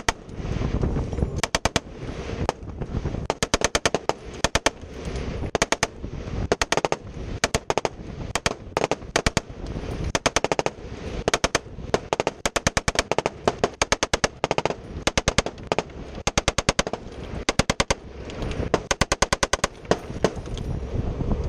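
M240 7.62 mm machine gun firing short bursts of a few rounds each, repeated again and again, with wind and water noise from the moving boat between the bursts.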